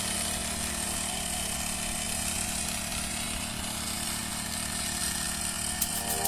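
Small four-stroke engine of a Yamamoto portable crop sprayer running steadily at speed.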